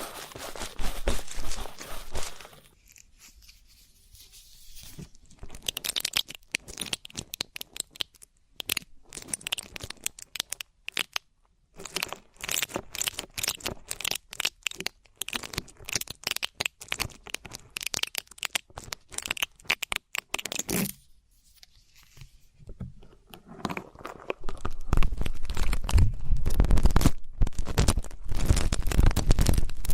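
Ear-cleaning ASMR: an ear pick scratching and scraping in quick, crackly strokes, with two short pauses. Near the end a louder, deeper rubbing sets in.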